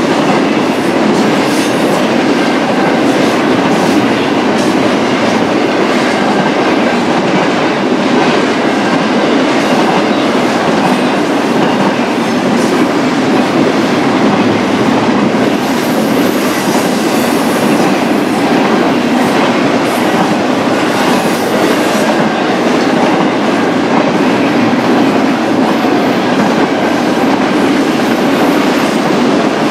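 A BNSF intermodal freight train's cars rolling steadily past, wheels clattering over the rails in a continuous loud rumble with no horn or braking.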